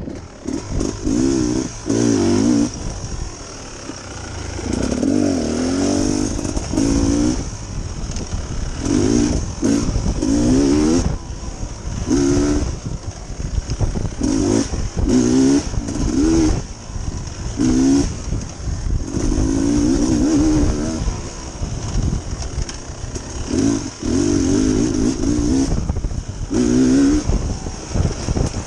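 Dirt bike engine revving in short bursts every second or two. The pitch climbs each time the throttle opens and falls away as it closes, as the bike is ridden along a singletrack trail.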